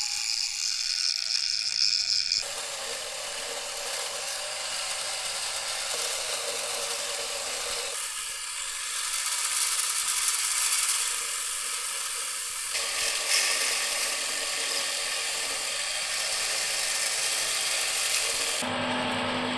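Steady scraping, grinding noise of abrasive work on a rusty steel hammer head, changing abruptly several times as one take cuts to the next.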